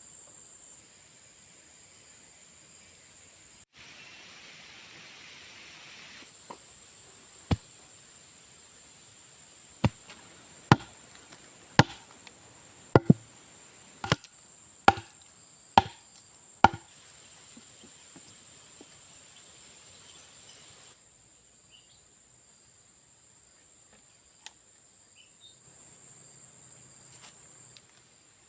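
About ten sharp chopping strikes on wood, roughly one a second, with a steady high-pitched insect drone behind them that stops about three quarters of the way through.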